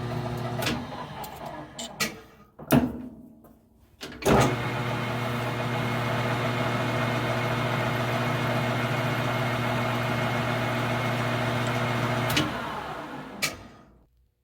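A few knocks, then a metal lathe's electric motor switches on about four seconds in with a steady hum. It runs for about eight seconds while the center drill starts the hole in the end of the 3/8-inch steel screw stock, then it is switched off and winds down.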